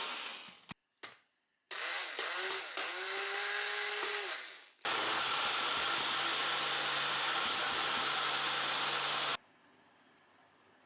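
A small electric kitchen appliance motor, such as a blender or chopper, running in two short pulses whose pitch rises and dips. It then runs steadily for about four and a half seconds and cuts off suddenly.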